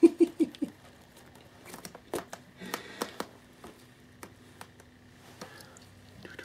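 Fabric play tunnel rustling and crinkling with scattered light clicks and scrapes as a cat scrambles inside it after a toy. A short run of voice-like sounds comes right at the start.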